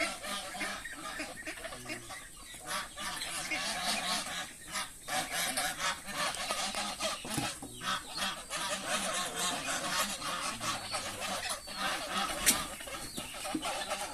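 A flock of domestic fowl calling continuously, many calls overlapping, with a single sharp click near the end.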